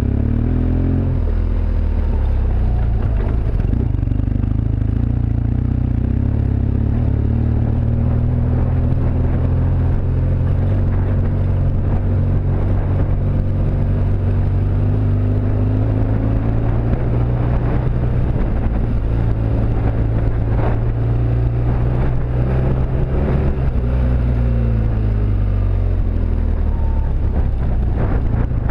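BMW R1200GS Adventure's flat-twin boxer engine running while riding, its note rising and falling with the throttle and dropping near the end. Tyres crunch over loose gravel, with small stone clicks.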